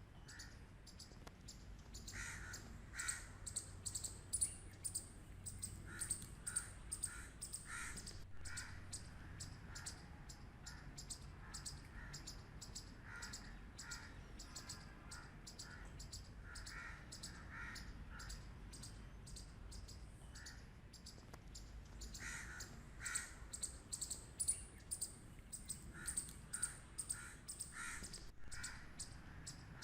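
Squirrel barking: short, sharp alarm barks in repeated bouts of several, over a steady series of rapid high clicks at about four a second.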